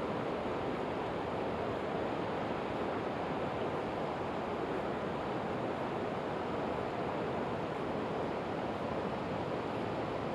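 Flowing river water rushing steadily, an even unbroken noise.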